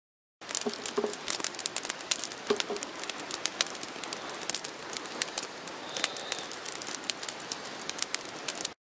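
Small campfire of twigs and sticks crackling: many sharp pops and snaps over a steady hiss. It starts suddenly about half a second in and cuts off just before the end.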